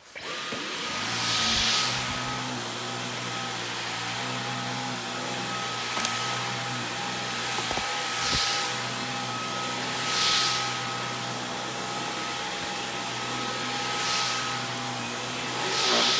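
Dyson V15 cordless stick vacuum switched on and running with a steady high whine, its suction hiss swelling louder about five times as it is worked over a carpet. It cuts off near the end.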